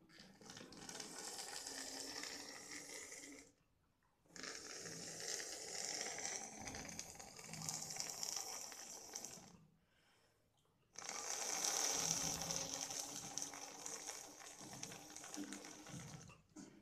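Someone sucking air by mouth through a thin plastic tube from a jar submarine model sitting in a tub of water: three long, airy, snore-like pulls, with a second's pause for breath between them. Drawing the air out is meant to let water into the jar so that it sinks.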